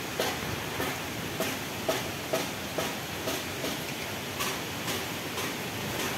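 Steady hiss of heavy tropical rain, with footsteps about twice a second of someone walking through it.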